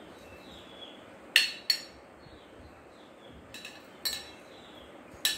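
Sharp metal clinks from a handheld metal lemon squeezer being picked up, opened and pressed over a glass: two loud clinks about a second and a half in, a few more around four seconds, and one near the end.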